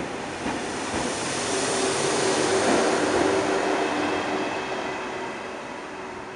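TGV Réseau high-speed trainset rolling slowly past a platform as it moves away, with a few wheel clicks early on. A steady low hum joins in about a second and a half in as the trailing power car draws near. The sound is loudest mid-way and fades as the train leaves.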